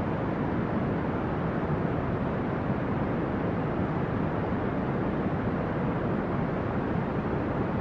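Steady brown noise: an even, deep rushing hiss weighted toward the low end, unchanging throughout.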